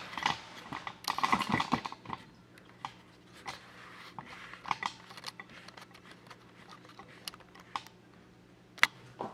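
Handling of a homemade air vortex cannon toy with a balloon membrane: scattered light clicks and taps, a louder burst of rustling and knocking about a second in, and one sharp click near the end.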